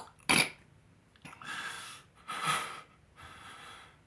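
A man breathing audibly, with three breathy hisses about half a second each, after a short sharp mouth noise near the start.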